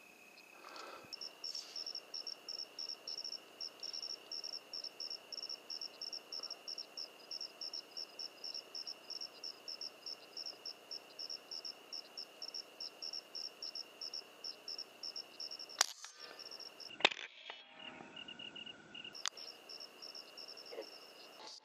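Crickets chirping at night, a rapid high chirp about four times a second over a steady high insect trill. Near the end two sharp clicks sound, the second one loud, and the chirping breaks off for a couple of seconds before resuming.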